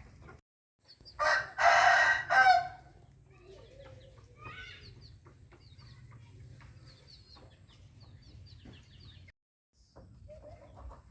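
A rooster crowing once, loud and drawn out, about a second in. Faint bird chirps follow.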